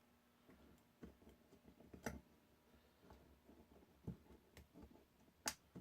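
Faint, scattered small metal clicks and taps, roughly one a second, from unscrewing the magazine release of a Smith & Wesson 469 pistol while its detent is held down. The sharpest click comes near the end.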